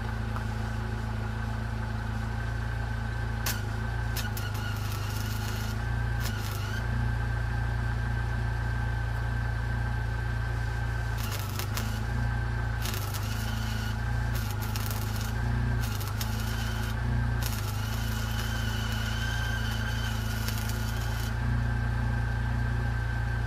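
Stick-welding arc from a 6013 rod crackling in several short bursts, then a longer run of about four seconds, over the steady hum of a Jeep Wrangler's engine idling at 750 RPM to power its on-board welder. A whine in the engine sound dips each time the arc is struck. The welder himself judges this idle too low for welding.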